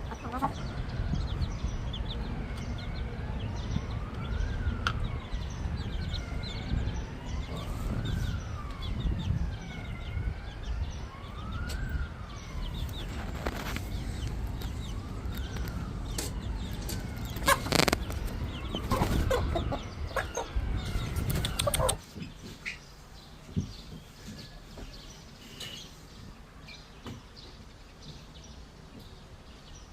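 A siren wailing, sliding slowly up and down in pitch about every four seconds, with chickens calling loudly over it around the middle. The sound drops off suddenly about two-thirds of the way through, leaving faint bird calls.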